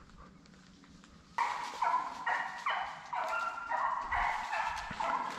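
Hunting hounds barking and baying on a deer chase, starting suddenly about a second and a half in: loud repeated bays, each dropping slightly in pitch, two or three a second.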